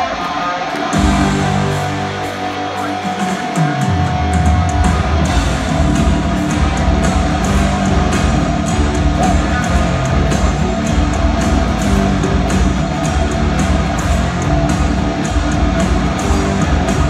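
Rock band playing live through an arena PA, heard from the audience: electric guitar over bass and a steady drum beat, with a held note in the first few seconds.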